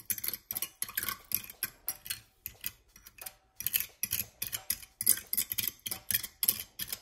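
Metal fork stirring and mashing chicken bouillon cubes in a little hot water, clicking and scraping against a ceramic bowl about four times a second.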